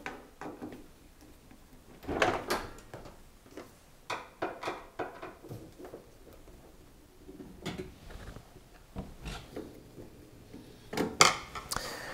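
Crosshead screwdriver undoing the screws that hold a dishwasher's metal side panel: scattered clicks, scrapes and small knocks, coming in several separate bouts.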